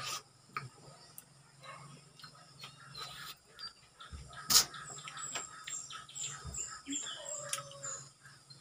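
Mouth sounds of a person eating soft soursop pulp, with scattered smacks and one sharp click about four and a half seconds in. A bird chirps in quick repeated notes in the second half.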